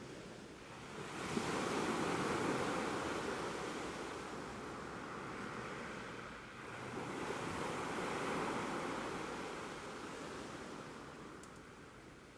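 Ocean waves washing onto the shore: two waves, one rising about a second in and another about halfway through, each swelling and then slowly fading.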